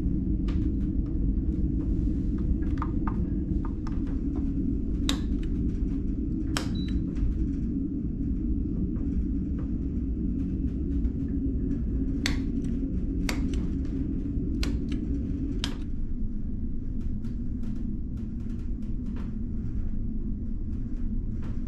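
Steady low rumble of the ferry underway, heard inside the cabin, with sharp clicks of light switches being pressed: a few about five seconds in and several more between about twelve and sixteen seconds.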